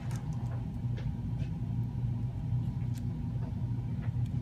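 A steady low hum with a few faint, light clicks on top, the small tool-and-part contacts of a cable connector being fitted into an iPhone SE during reassembly.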